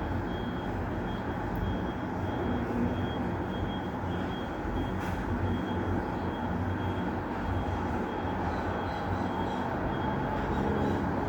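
Steady outdoor rumble of road traffic, with a high electronic beep repeating rapidly and evenly throughout.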